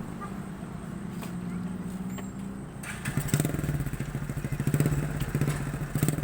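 Motorcycle engine of a home-built ATV running steadily at a low speed, then revving up about three seconds in and running louder with a rapid pulsing beat.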